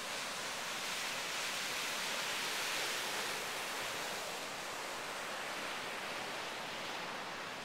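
Ocean surf washing over the rocks at the foot of a cliff, a steady hiss that swells slightly a second or so in and eases off again.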